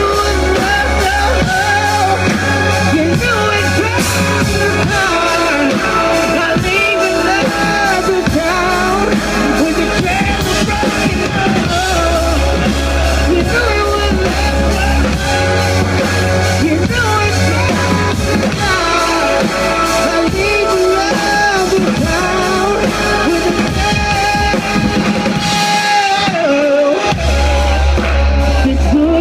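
A live rock band playing, with a male singer singing a melody over drums, bass and guitar.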